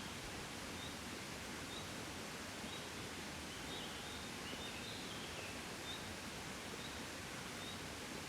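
Soft, steady wind rustling, an even hush with no gusts. Short high chirps repeat about once a second over it, with a brief warbling phrase around the middle.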